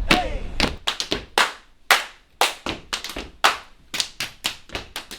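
Body percussion: hand claps and slaps on the body played in a quick rhythmic pattern, about four to five sharp strikes a second.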